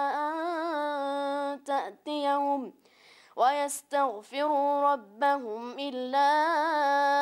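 A boy's high, unbroken voice reciting the Quran in a melodic chant. He holds long, wavering ornamented notes, breaks off briefly for breath about three seconds in, then goes on in shorter phrases before settling into another long held note.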